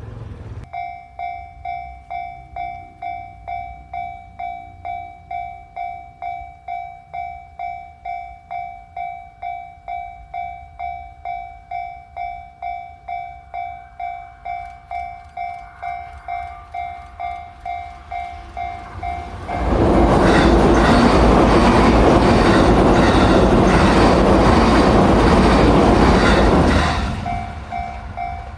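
A Japanese level crossing's warning bell begins ringing within the first second, in a steady beat of about two dings a second. About twenty seconds in, a train passes the crossing at speed; its loud rumble and wheel clatter drown out the bell for about seven seconds, then the bell is heard again as the train clears.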